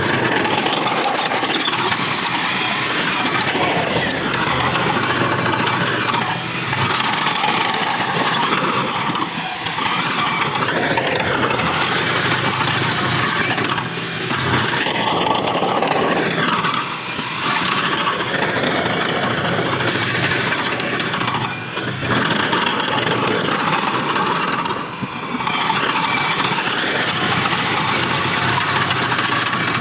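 Heavy diesel earthmoving machinery at work: a loud, dense machine noise that dips briefly every few seconds.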